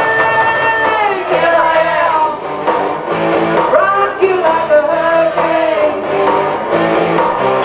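Rock song with a singing voice over strummed guitar and a steady beat.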